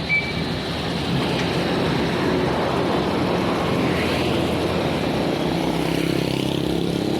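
Bus engine running with steady road and traffic noise, its note rising slightly near the end. A brief high-pitched tone sounds right at the start.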